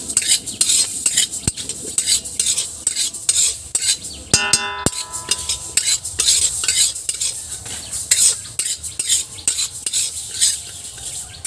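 Metal spatula stirring and scraping dry moong dal around a black wok as it is dry-roasted, a steady run of short rasping strokes over the rattle of the grains. A short ringing tone sounds briefly about four and a half seconds in.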